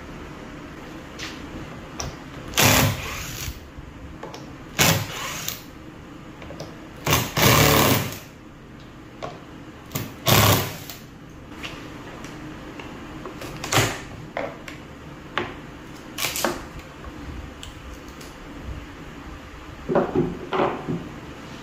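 Cordless impact driver driving screws into plywood in a series of short bursts, about half a dozen over the stretch, the longest lasting about a second, with small knocks of wood being handled between them.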